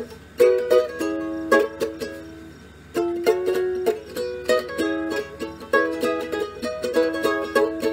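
Ukulele being strummed, its chords ringing; one chord is left to ring and die away before the strumming picks up again about three seconds in.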